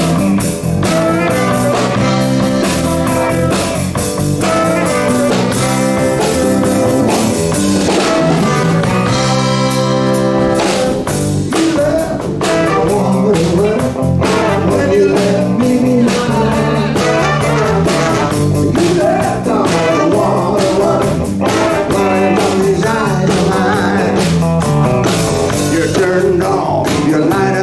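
Live blues band playing an instrumental passage with guitar, ahead of the vocals.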